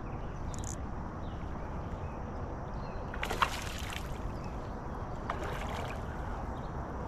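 Steady wash of wind and water around a kayak, with two short splashes about three and five seconds in as a hooked fish thrashes at the surface.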